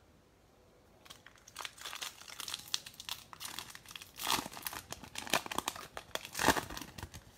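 Foil wrapper of a baseball card pack crinkling and tearing as it is ripped open by hand. The crackling starts about a second in, with two louder rips about four and six and a half seconds in.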